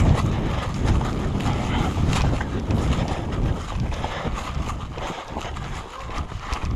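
Wind rumbling on the microphone, with scattered light clicks and rustles. The rumble is strongest at first and eases off towards the end.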